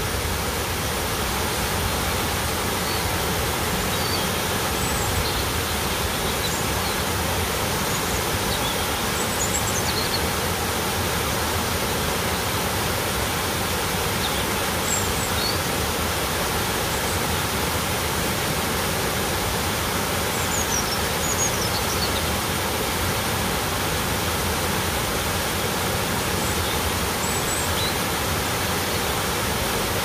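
Waterfall plunging over rock into a pool below, a steady, unbroken rush of water. A few faint high chirps sound now and then over it.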